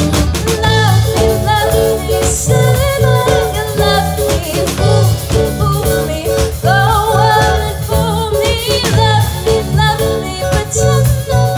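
A small live band playing pop-rock: a female lead vocal sung over electric guitar, electric bass, a drum kit and a Roland Juno synthesizer keyboard, with a steady beat.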